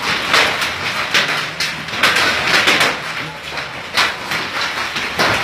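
Heavy rain and hail falling: a steady hiss with a dense, irregular patter of hits.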